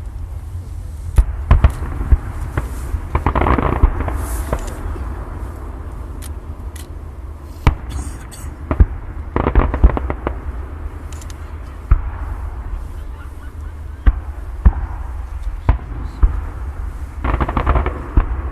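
Fireworks going off: irregular sharp bangs over a steady low rumble, with quick runs of crackling pops about three seconds in, around ten seconds in and again near the end.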